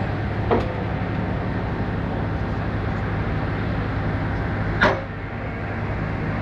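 Heavy machinery engine running steadily, with a sharp knock about half a second in and a louder one near the five-second mark.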